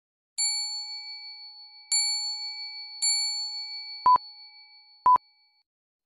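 Three bell-like chime strikes, each ringing out and fading, followed by three short, loud electronic beeps about a second apart like a countdown, all over dead silence: an edited-in sound effect.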